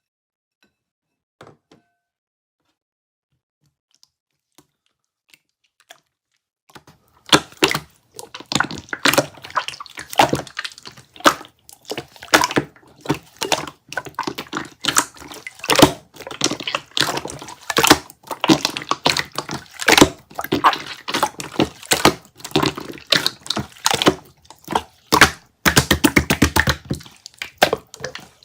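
Green jiggly slime being squeezed and poked, making dense wet clicks and crackles. Only faint ticks for the first seven seconds or so, then the clicking starts and keeps up.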